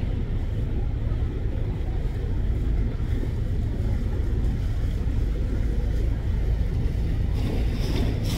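Strong wind buffeting the microphone: a loud, steady low rumble with a rushing hiss over it.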